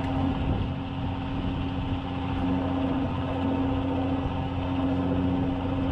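Steady drone of a fishing boat's engine, running at an even, unchanging pitch.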